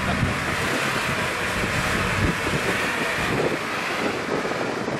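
Wind rushing and buffeting on the microphone, with an off-road vehicle's engine running underneath.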